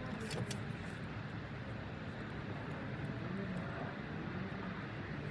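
Steady low outdoor rumble, with a few faint clicks about half a second in.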